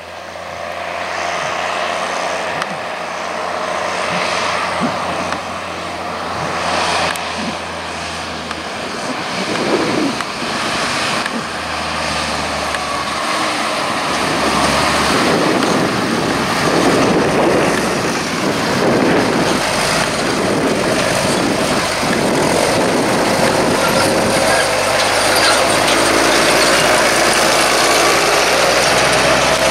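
New Holland T7030 tractor's six-cylinder diesel engine running steadily while it pulls a Pottinger loader wagon. Its pitch shifts a few times, and near the end the engine revs up.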